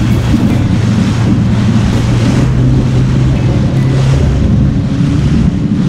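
Small boat's engine running at speed under heavy wind on the microphone and the rush of water. The steady engine hum shifts up a little in pitch about halfway through.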